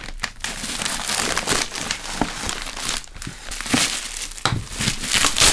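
Plastic bubble wrap crinkling and crackling as it is handled and pulled off an item, a continuous rustle broken by many short sharp crackles.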